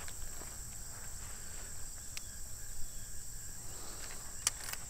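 Insects trilling steadily in a high, even band, with a couple of faint sharp clicks, the clearest one near the end.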